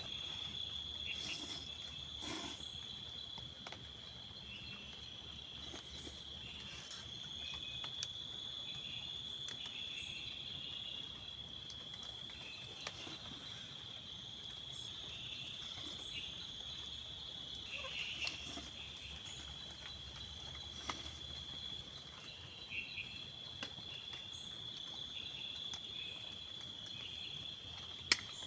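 Insects chirring in one steady, unbroken high-pitched trill, with short chirps just below it and scattered faint clicks.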